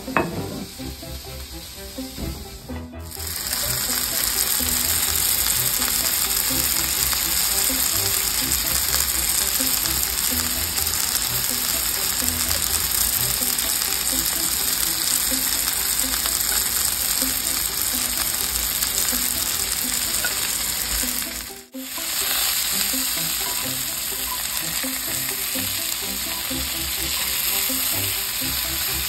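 After a quieter start with a click, food fries on hot cooking surfaces in a loud, steady sizzle: pancake batter on a stovetop griddle, then, after a brief break about 22 seconds in, sausages in a cast-iron skillet.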